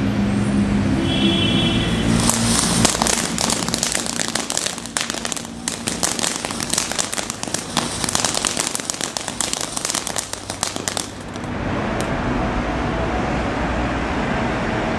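Ground fountain firework spraying: a loud hiss with a dense, rapid run of sharp crackles, starting about two seconds in and dying away around eleven seconds. A steady background noise with a low hum fills the time before and after it.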